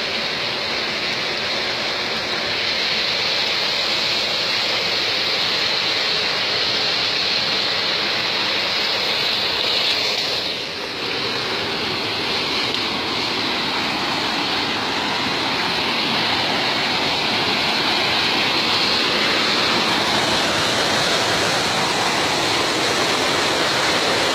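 Steady rush of water from a waterfall, a constant hiss with a brief dip about ten seconds in.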